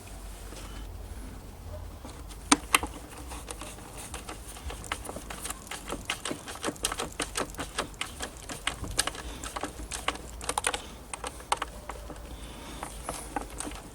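Screwdriver driving screws back into a Kenwood Chef stand mixer's cover, giving many quick, irregular clicks and ticks, with a sharper click about two and a half seconds in.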